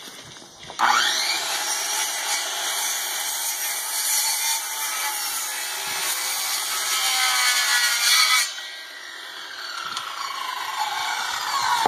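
DeWalt corded circular saw starting up with a rising whine, then cutting a long 22.5-degree bevel through a pine framing board. The cut ends about eight and a half seconds in and the sound drops off sharply.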